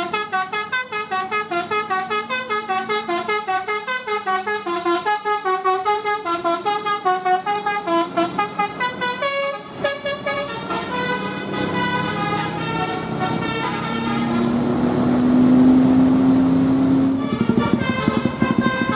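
A bus's musical telolet basuri horn playing a fast tune of short stepping notes for about nine seconds, then slower held notes. A long low steady tone is the loudest sound, a few seconds before the fast notes start again near the end.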